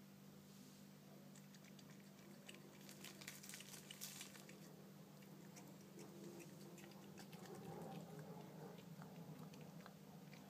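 Faint clicks and smacks of a cat chewing and licking at strawberry, loudest in a cluster of clicks a few seconds in, over a steady low hum.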